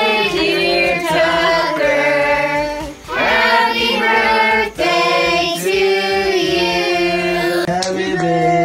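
Voices singing, a child's among them, in long held notes with brief breaks about three seconds and four and a half seconds in.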